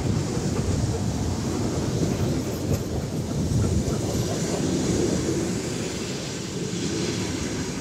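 Six-car ER9M electric multiple unit (ER9M-504) running past close by, a steady noise of its wheels on the rails that eases slightly near the end.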